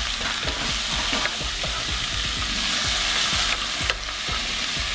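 Small pieces of beef steak sizzling as they fry in hot oil in a pot, with frequent small pops. A wooden spoon stirs and scrapes them against the pot.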